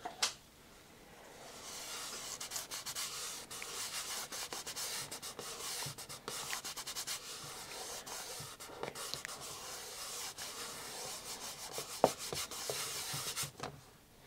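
Fingers rubbing a vinyl roundel decal down onto the glossy wing of a balsa model jet, a steady rubbing hiss with small crackles that starts about a second and a half in and stops shortly before the end. A sharp click comes near the start and another late on.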